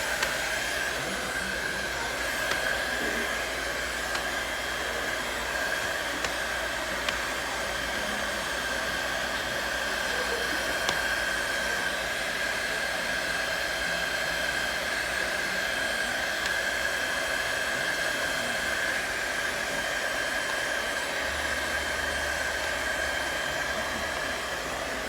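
Handheld electric hot-air blower running steadily, a fan rush with a steady whine, held on wallpaper to soften it over an air bubble so the paper tightens down.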